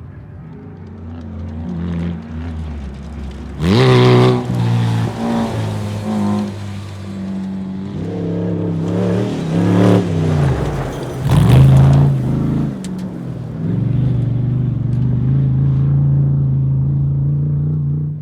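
Off-road race vehicle engines revving hard as they pass, with a sharp climb in pitch about four seconds in and more rises and falls around ten and twelve seconds. A steady engine note holds through the last few seconds and cuts off suddenly.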